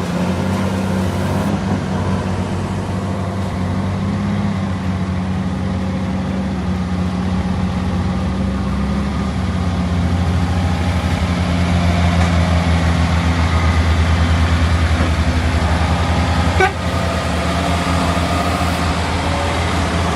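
Heavy logging truck's diesel engine running steadily under load, louder for a few seconds in the middle. There is a brief sharp sound about three-quarters of the way through.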